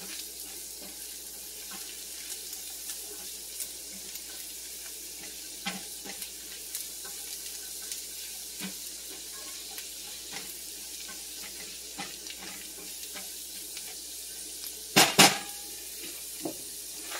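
Diced vegetables sizzling in butter in a stainless steel skillet as they are stirred with a silicone spatula, with light scrapes and clicks against the pan. About fifteen seconds in come a couple of louder knocks of the spatula.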